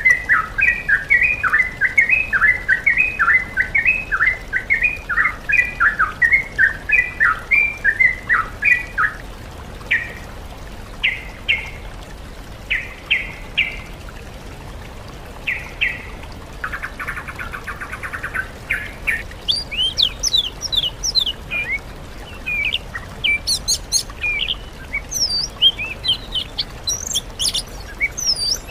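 Recorded songbird song from a bird-training mix of sooty-headed bulbul with oriental magpie-robin and greater green leafbird. A fast run of repeated chirping phrases goes on for about nine seconds, then gives way to scattered notes and a short buzzy trill, and about two-thirds of the way in higher, quick sweeping whistles take over.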